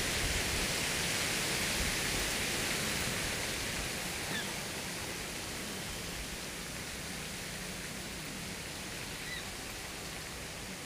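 Steady, even hiss of outdoor background noise that slowly grows quieter, with two faint short chirps about four and nine seconds in.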